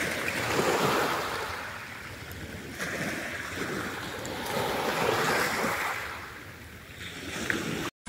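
Small waves breaking and washing up a pebble beach, the surf swelling and ebbing about three times; it cuts off abruptly just before the end.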